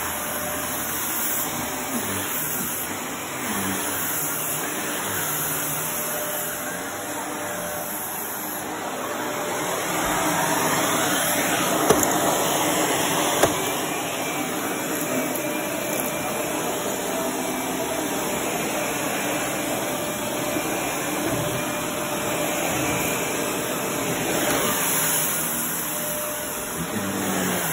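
Shark upright vacuum cleaner running steadily, pushed back and forth over carpet and picking up fluff and small grit, with a faint steady motor whine. It gets louder for a few seconds about halfway through, with two sharp clicks of debris being sucked up.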